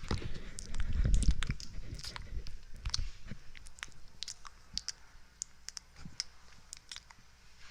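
ASMR mouth sounds: wet tongue and lip clicks and smacks, short and irregular, heavier in the first second or so, then sparser and fainter.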